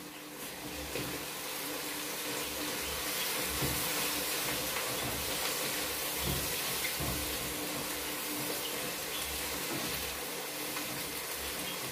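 Steady sizzling hiss from a pot cooking on a lit gas burner while a spatula stirs it, with a few soft low knocks.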